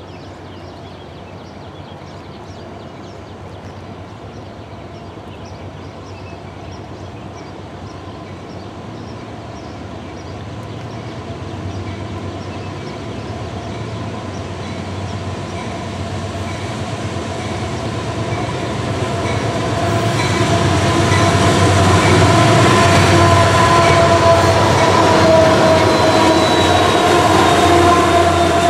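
CSX autorack freight train with two GE AC diesel-electric locomotives on the head end approaching, the engine and wheel noise growing steadily louder until the locomotives pass close by near the end. Underneath, a grade crossing bell rings at an even beat.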